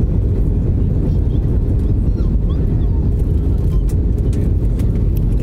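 Cabin noise inside an Airbus A320-family airliner on descent: the steady, loud rumble of the jet engines and rushing air heard through the fuselage, with a faint steady hum above it.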